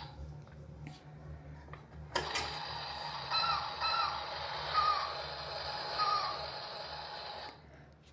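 Toy pirate ship's built-in electronic sound effect, played through its small speaker. It is set off with a click about two seconds in, runs about five seconds with a few short chirping pitch glides, and then stops.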